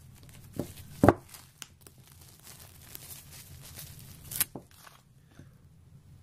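Handling sounds of food packaging and a bowl: a few sharp knocks about a second in, soft rustling of a plastic pouch, and a sharp crackle of packaging a little past four seconds in.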